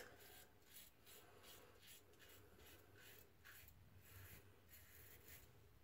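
Faint scraping of a 1964 Gillette Slim Adjustable safety razor cutting through two days' stubble on a lathered cheek, in short strokes in quick succession.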